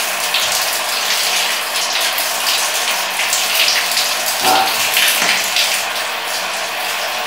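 Water from a handheld shower head running steadily, spraying onto a tiled floor and wall while it is left on to heat up.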